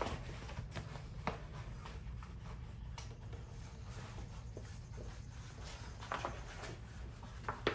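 VViViD carbon fiber vinyl wrap crinkling and rustling as it is pulled over a metal skid plate and smoothed down by hand, with scattered small crackles that come more often near the end.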